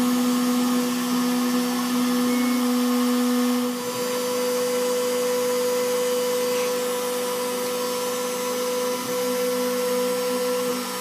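CNC machine spindle motor running with a steady, high whine over a hiss; the lower part of its tone drops away about four seconds in while a higher tone carries on.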